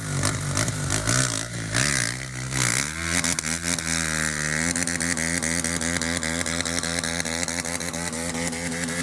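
Car engine running, its pitch rising about three seconds in and then holding steady.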